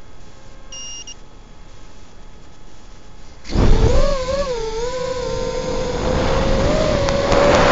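Kopis 1 FPV quadcopter's brushless motors spinning up suddenly about three and a half seconds in, then a steady high whine that wavers in pitch at first as the quad lifts off and flies low. A short faint beep sounds about a second in.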